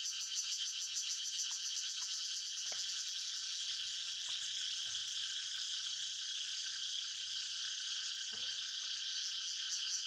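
Steady chorus of calling insects: a dense, high, rapidly pulsing trill. A faint short call sounds about eight seconds in.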